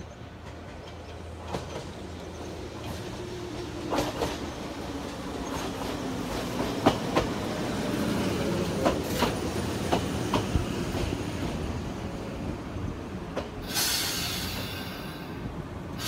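Two-car Chichibu Railway electric train pulling into the station: wheels clicking over the rail joints and a falling motor whine as it slows, then a sharp hiss of air near the end as it comes to a stop.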